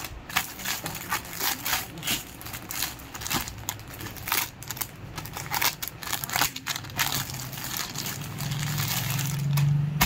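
Clear plastic garment packets crinkling and rustling as they are handled and unfolded, in quick irregular bursts. A low hum builds near the end.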